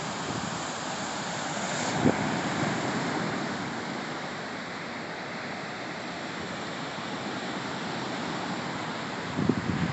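Steady rush of sea surf and wind, swelling about two seconds in, with a few short low thumps near the end.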